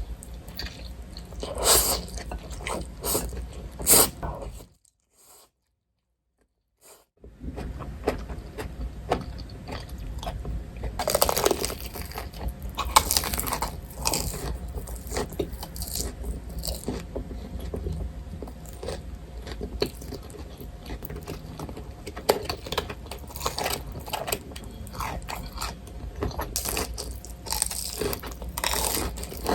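Close-miked eating: a person biting and chewing, with repeated crunching and soft crackles of food between the teeth. The sound drops to silence for about two seconds near five seconds in, then the chewing resumes.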